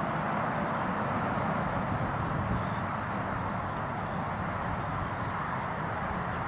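Jet engines of a twin-engine widebody airliner running with a steady noise and low rumble, with a few short high bird chirps a couple of seconds in.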